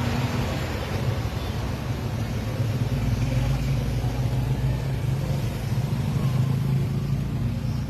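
Steady low rumble and hum of a moving vehicle, with no clear changes.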